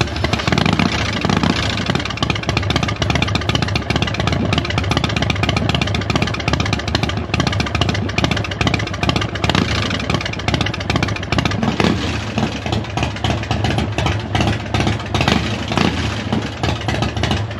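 2001 Harley-Davidson motorcycle's V-twin engine running steadily, just after catching on a freshly fitted battery.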